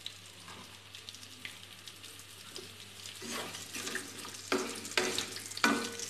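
Onion pieces frying in hot oil in a metal kadai, with a soft sizzle. A spatula stirs and scrapes them, getting louder from about three seconds in, with a few sharp scrapes near the end.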